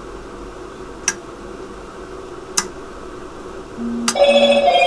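Two sharp clicks, then near the end a loud electronic ringing tone with several steady pitches at once, like a phone ringtone.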